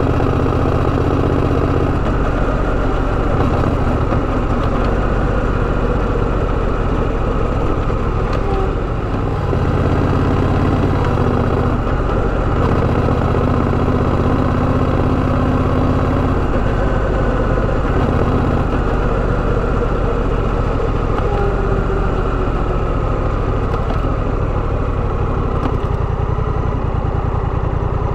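Honda Rebel 1100 DCT motorcycle's parallel-twin engine running steadily.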